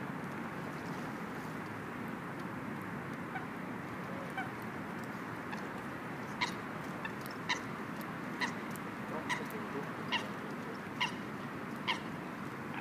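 Eurasian coots giving short, sharp calls, about one a second, from about halfway through, over a steady rushing background.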